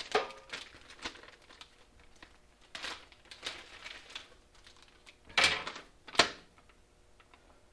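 Plastic hardware bag and paper instruction sheet rustling and crinkling as they are handled, in short scattered rustles with two louder crackles a little past halfway.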